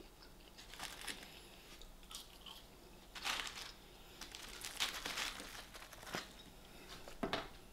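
A person chewing and biting food close to the microphone, most likely KFC skin-on fries, with scattered soft crunches and crinkles of paper packaging.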